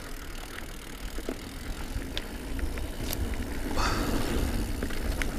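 Diamondback Release 3 mountain bike rolling over a dirt singletrack trail: tyre noise on the dirt with scattered clicks and rattles from the bike, over a low wind rumble on the microphone. It grows louder about four seconds in.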